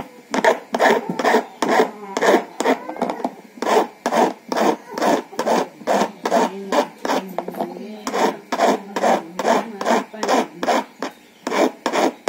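Small hand file rasping back and forth across a metal key blank in short, even strokes, about three a second, with a couple of brief pauses. This is a replacement car key being cut by hand.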